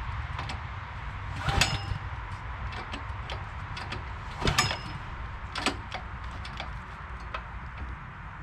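Recoil starter rope of a Honda GX390 engine pulled hard twice, about a second and a half and four and a half seconds in, with a lighter pull near six seconds; the engine turns over but does not start. Small clicks and knocks in between.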